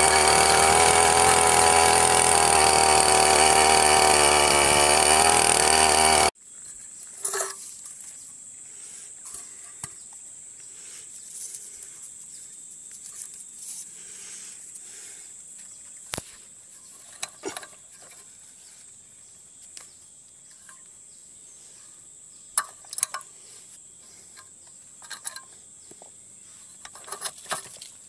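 Petrol brush cutter engine running fast with a tiller attachment churning soil, its pitch wavering slightly. It stops abruptly about six seconds in, leaving a quiet outdoor background with scattered light clicks and taps.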